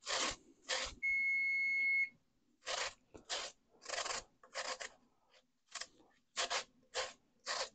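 Raw potatoes being rubbed over a hand grater in short rasping strokes, about a dozen, spaced irregularly. About a second in, a steady electronic beep sounds for about a second.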